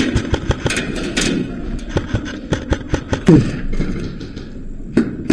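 Irregular sharp clicks and knocks of an airsoft fight, a dozen or more spread unevenly, with a louder thud and a brief low sound that falls in pitch about three seconds in.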